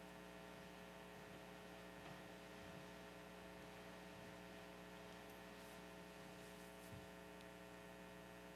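Near silence filled by a steady electrical mains hum with many evenly spaced overtones, plus two faint soft knocks, about three and seven seconds in.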